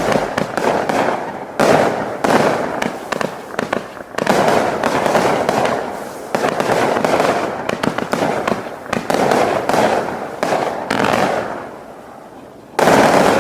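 Consumer aerial finale-set firework cakes firing rapidly, shot after shot of launches and bursts in dense waves. The firing thins out briefly near the end, then one loud burst follows.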